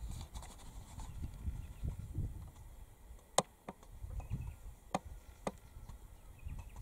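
A few sharp clicks or snaps about halfway through, the first the loudest, over a low, unsteady rumble.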